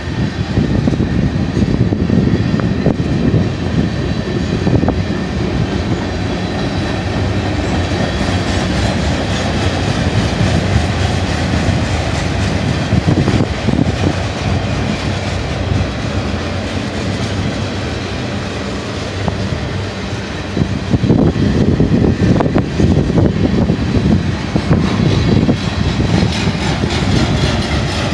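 Freight cars of a mixed manifest train (tank cars, autoracks, boxcars) rolling past: a steady rumble of steel wheels on rail, scattered with clicks and clatter as the trucks pass, swelling louder about twenty seconds in.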